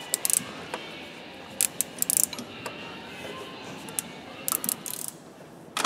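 Ratchet wrench clicking in short bursts, four times, as the bolt of the timing-belt idler roller on a Mazda RF diesel engine is undone.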